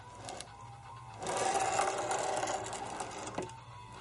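CNC ballscrew-driven carriage travelling along a linear rail: a steady mechanical whir with a faint whine, louder from about a second in until near the end.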